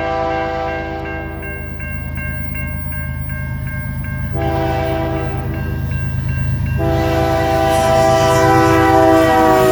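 Nathan K3L five-chime air horn on a CN ES44DC diesel locomotive sounding a series of long blasts, with a gap of rapid regular ringing at about three strokes a second between the first and second blasts. The chord drops in pitch near the end as the locomotive passes, over the steady rumble of the diesel engine.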